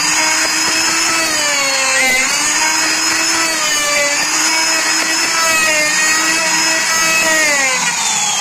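Endico electric plunge router running loud and steady while its bit cuts a slot into a wooden batten, a high motor whine whose pitch dips briefly about two seconds in as the cut loads it. Near the end the pitch drops away as the motor slows.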